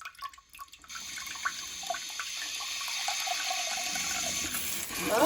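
Bidet attachment's rear-wash nozzle spraying a steady jet of water, starting about a second in after a few clicks.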